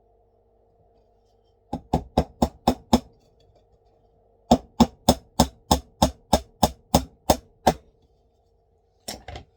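Pin hammer tapping nails into a wooden DN4 beehive frame: a quick run of about six strikes, then after a short pause a steady run of about a dozen at roughly four a second, and a couple more near the end.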